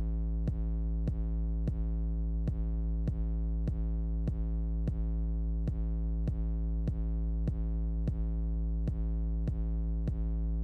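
Background electronic music: a held synthesizer chord over a steady drum-machine beat, about five beats every three seconds.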